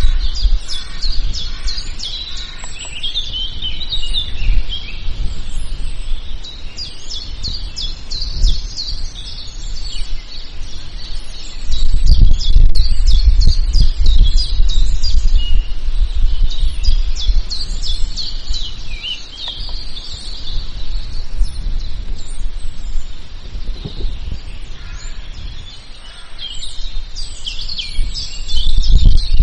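Many wild birds chirping and singing together in a forest, with overlapping short calls and trills. A loud low rumble swells about twelve seconds in and again near the end.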